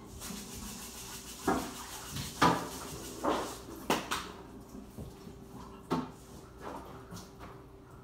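Kitchenware being handled and set down: about five separate knocks and clatters spread over a few seconds, over a faint steady hum.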